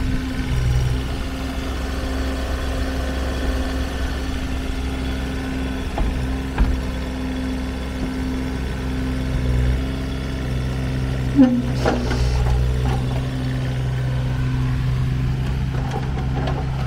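Kubota KX016-4 mini excavator's three-cylinder diesel engine running steadily. Its low note shifts about two-thirds of the way through as the boom hydraulics are worked, with a few light knocks from the machine.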